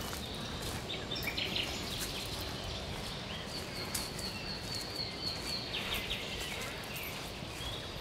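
Footsteps walking on a dirt path covered with dry fallen leaves, over a steady outdoor hiss, while small birds call. About halfway through, a bird gives a rapid run of repeated high notes for a couple of seconds.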